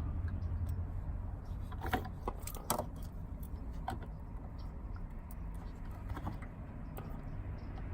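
Scattered light clicks and rattles of plastic parts being handled as fingers work at a wiring connector's locking clip under the dashboard, over a low steady hum. The sharpest clicks come about two seconds in.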